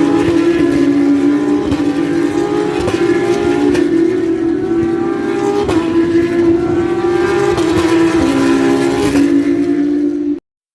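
Formula 1 cars' 1.6-litre turbocharged V6 hybrid engines running at high revs on track, the pitch climbing and dropping back at each upshift. The sound cuts off suddenly near the end.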